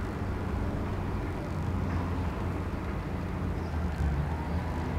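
Wind rumbling steadily on the microphone during a gusty spell.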